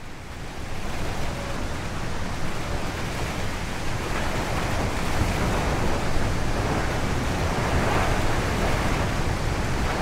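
Recorded wind, a steady rush with a deep rumble underneath, fading up in the first second and then holding steady.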